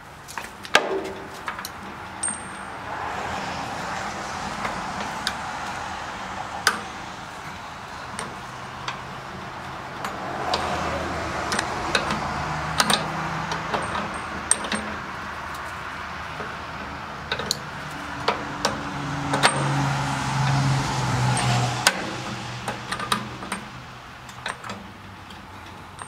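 Sharp metallic clicks and taps of pliers bending a steel cotter pin on a wheel axle. Twice, a passing car's road noise swells and fades underneath.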